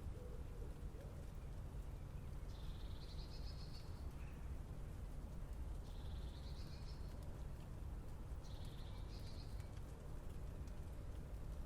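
Steady low city rumble of distant traffic, with a small bird repeating the same short, high, trilling song phrase three times, about every three seconds.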